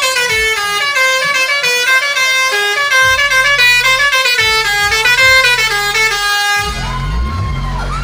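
A decorated tourist bus's musical air horns sound a loud tune of held notes, stepping from pitch to pitch. About six and a half seconds in, the horns give way to music with a heavy bass beat.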